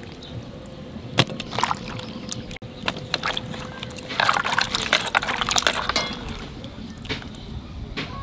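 Hands washing cut vegetable pieces in water in a clay bowl: water sloshing and splashing, with short knocks as the wet pieces are scooped and dropped into a second bowl. The splashing is busiest around the middle.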